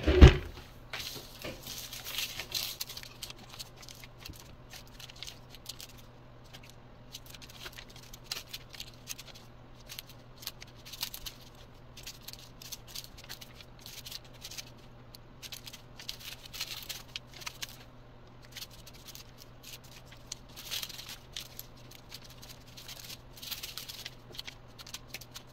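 Small plastic bags of resin diamond-painting drills being handled and set down one after another, the beads rattling and the plastic crinkling in short, irregular bursts. A single knock right at the start is the loudest sound.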